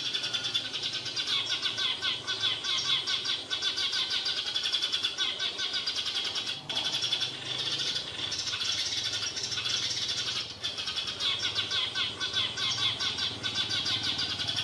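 A flock of sparrows chirping together in a dense, continuous chatter of rapid overlapping chirps.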